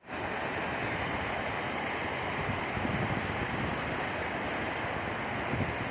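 Sea waves breaking and washing on the shore: a steady rush of surf with slight low swells.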